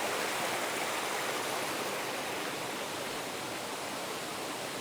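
Steady rush of water from a small woodland stream tumbling over low rocky cascades, an even hiss with no breaks.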